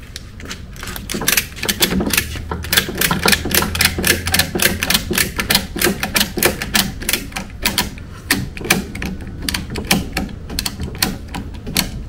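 Retractable ratchet strap being cranked tight: the ratchet handle is pumped back and forth and the pawl clicks rapidly and repeatedly, several clicks a second, as the strap is drawn taut over the load.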